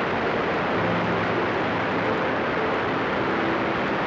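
Light aircraft in cruise flight: steady engine and propeller drone under a heavy rush of wind noise, with faint engine tones shifting slightly in pitch.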